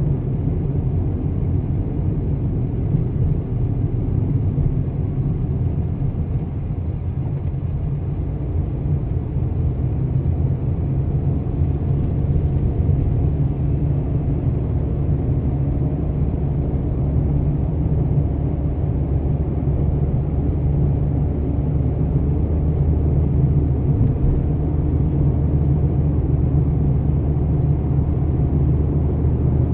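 A car driving through city streets: a steady low rumble of engine and road noise.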